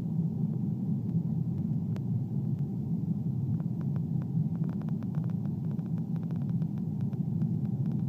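Steady low rumble of a jet airliner's cabin in cruise flight, heard from inside the cabin by the window. A run of faint light clicks comes through in the middle.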